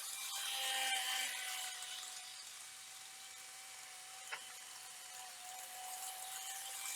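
Model E5 series Shinkansen train running on its track: a steady electric-motor whine over the hiss of wheels on rails. It is loudest about a second in, fades, then builds again near the end, with one sharp click a little past halfway.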